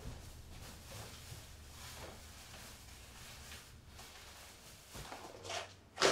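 Quiet kitchen room tone with a low steady hum and a few faint soft knocks and rustles, with a louder, sharper sound right at the end.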